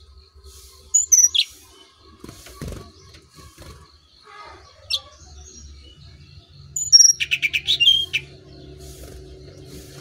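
Brown-chested jungle flycatcher (sikatan rimba dada coklat, SRDC) calling on a bird-keepers' lure recording. A sharp falling chirp comes about a second in, a short call near the middle, and a quick run of about ten repeated high notes near three-quarters of the way through.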